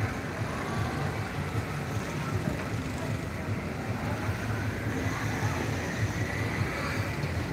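Steady night-time city street ambience heard from high above, with the low rumble of motorbike traffic on the street below.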